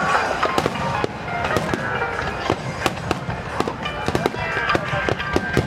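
Aerial fireworks bursting in quick succession: many sharp cracks and bangs, several a second, with music playing underneath.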